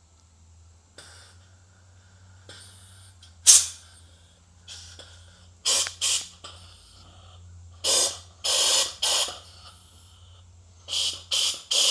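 Compressed air hissing in a string of short blasts, about ten of them in uneven groups, as a transmission clutch drum is air-checked for leaks, with air escaping through the drum's bleed-off valve. A faint steady low hum runs underneath.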